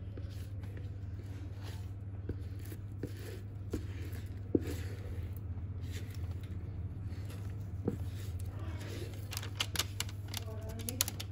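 Parchment paper rustling and crinkling, with scattered small clicks and knocks, as thick brownie batter is tipped from a mixing bowl into a parchment-lined pan; the crackling gets busier near the end. A steady low hum runs underneath.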